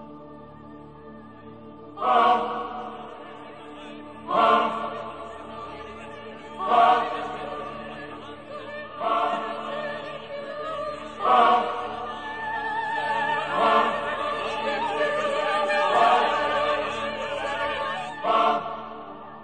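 Background choral music: a held drone with a fresh swelling choir chord about every two and a quarter seconds, each fading before the next.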